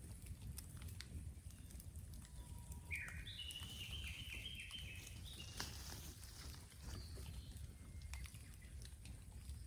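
Raw bamboo bonfire crackling with scattered sharp pops over a low steady rumble. A bird sings a run of high whistled notes from about three to five and a half seconds in.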